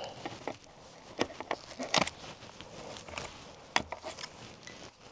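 Footsteps and handling noise outdoors: irregular sharp clicks and knocks over crunching rustles, with the sharpest clicks about two seconds in and again near four seconds.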